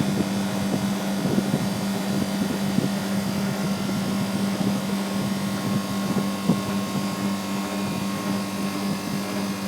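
Condensing unit running, its Bristol compressor and condenser fans making a steady mechanical hum with a constant low drone.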